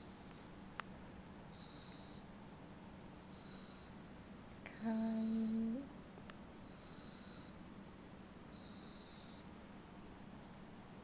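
Snoring: a high, whistling breath sound that repeats about every two seconds. About halfway through comes one louder, steady, pitched sound lasting about a second.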